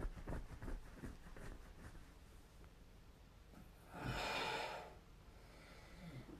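A sleeping person snoring: a fluttering snort for the first two seconds, then one loud, airy breath about four seconds in, lasting about a second.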